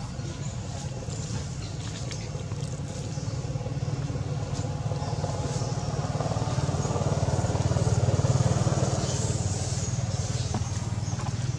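Motor vehicle engine hum that grows louder to a peak about eight seconds in, then fades as the vehicle passes by.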